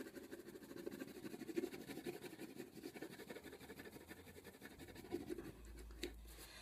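Faint scratching of a black crayon colouring in a small shape on paper, in quick back-and-forth strokes.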